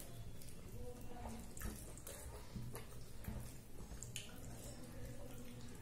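Fingers mixing rice with cauliflower and potato curry on a plate: faint, wet squishing with small scattered clicks, over a low steady hum.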